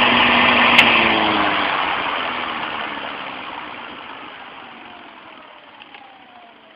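Makita UM401D 24-volt cordless lawnmower's electric motor and blade winding down after being switched off. A sharp click comes just under a second in, then the running sound fades steadily while its pitch falls.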